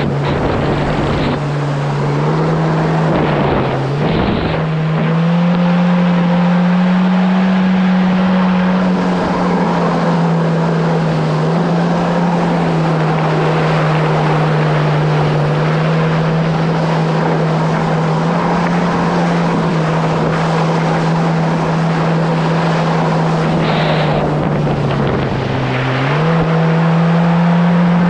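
Kawasaki SX-R 1500 stand-up jet ski under way, its four-cylinder engine running with a steady drone over the rush of water and wind. The engine note dips and climbs again a few seconds in and once more near the end.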